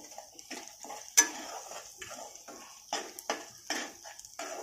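A metal spoon stirring and scraping thick spice paste around a kadhai in a series of short strokes, with one sharp clink of metal on the pan about a second in.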